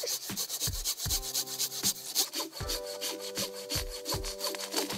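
Hand saw cutting wood in fast, even strokes, several a second.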